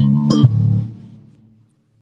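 Bass guitar playing a quick run of plucked notes, the last one about half a second in left to ring and die away into silence.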